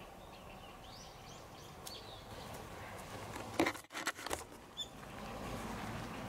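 Outdoor ambience with small birds chirping, then a few loud knocks and rustles about halfway through as the camera is brought down close to the cat. Softer rustling follows.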